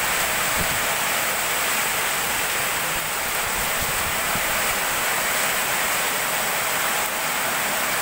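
Heavy downpour: a dense, steady rush of rain pouring onto the street and the awning.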